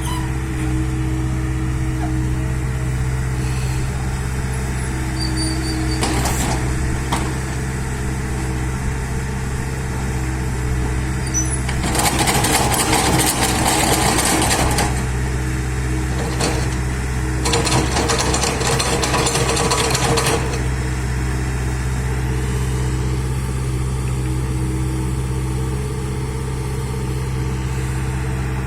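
Bulldozer's diesel engine running steadily, with two louder stretches of harsh, rattling noise of about three seconds each around the middle.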